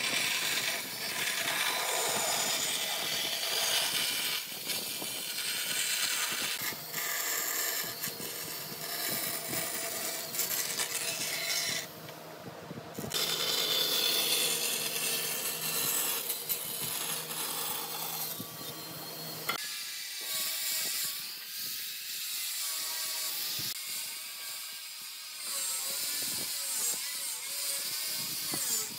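Woodworking tools working on wood: a scraping, cutting noise that breaks off briefly about twelve seconds in. Over the last third comes a small motor's whine that wavers up and down in pitch.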